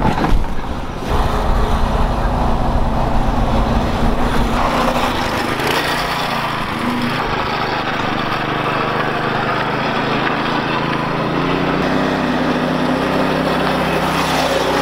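Small engine of a homemade bunk-bed go-kart running steadily as the kart is driven, its note shifting a little about three-quarters of the way through.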